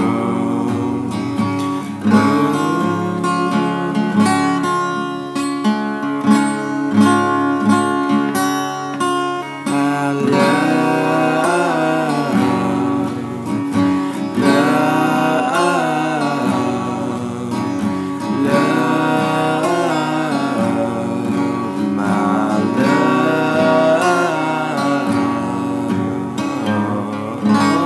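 Acoustic guitar music: a strummed and picked instrumental passage of a song.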